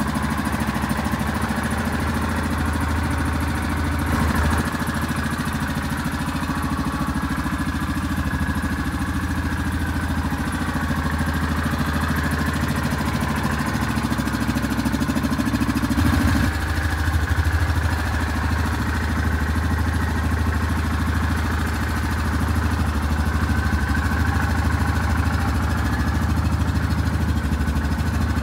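Yamaha Kodiak 450 ATV's single-cylinder four-stroke engine idling steadily. Its note shifts slightly a few seconds in and again about halfway through.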